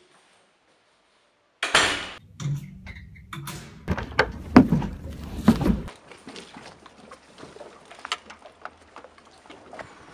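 Knocks and bumps over a low rumble for about four seconds, like a camera being carried while walking, then a run of lighter clicks and taps.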